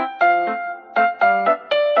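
Background music: a piano or electric-piano melody, one note struck about every half second, each decaying after it is struck.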